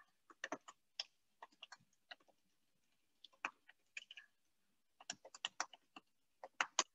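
Computer keyboard typing in short irregular runs of keystrokes, faint through a video-call microphone.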